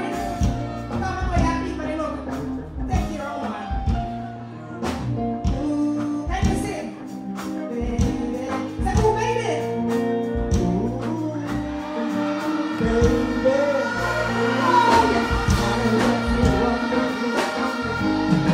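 Live stage music with a steady beat, and a woman singing into a microphone over it.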